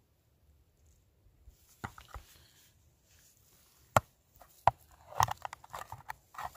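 Handling noise: after a near-silent second and a half, a scattering of sharp clicks and knocks of hard objects being moved about. The loudest comes about four seconds in, followed by a quick cluster near the end.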